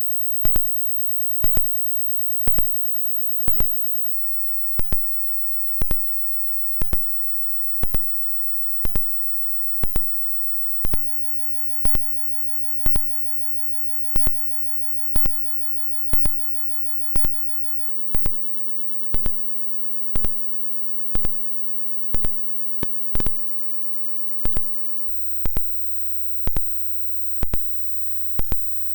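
Hearing-test sine tone: a very high, steady pure tone that steps up in pitch four times, about every seven seconds. A sharp tick sounds about once a second, louder than the tone.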